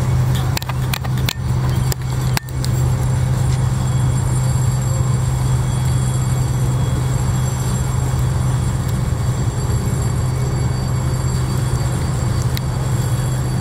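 Boat engine running steadily, a constant low drone. A few sharp clicks and knocks come in the first two seconds or so.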